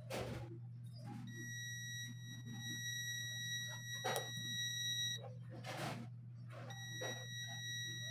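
ANENG M118A multimeter's continuity buzzer giving a steady high beep while its probes bridge two commutator bars of a vacuum-cleaner motor armature, a sign of near-zero resistance (about 0.06–0.08 ohm) and an unbroken winding between those bars. Two long beeps: one starting about a second in and lasting about four seconds, another from about seven seconds in, with small clicks of the probe tips on the copper bars.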